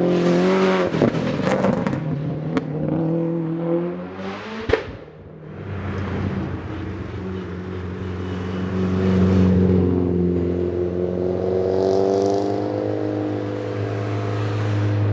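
Engine of a 1000 hp Subaru WRX STI hillclimb car, a turbocharged flat-four on a billet block with a straight-piped exhaust, revving with sharp exhaust pops in the first few seconds and a single loud bang about four and a half seconds in. After a brief dip, the engine note rises and swells, then holds and eases off near the end.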